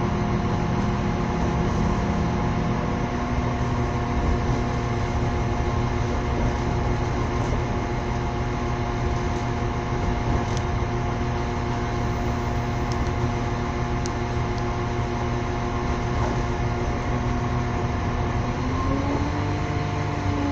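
Running noise of a moving train heard from on board: a steady rumble with a constant hum, and a tone that rises briefly near the end.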